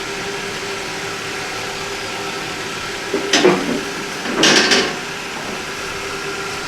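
Steady hum of the Honda Orthia running, heard inside its cabin. Two short swishing noises come a little after the middle.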